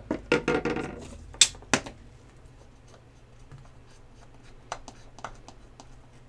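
Cotton swab with rubbing alcohol scrubbing around a freshly soldered diode on a circuit board: light scratching with a few sharp clicks, busiest in the first two seconds, then only scattered ticks.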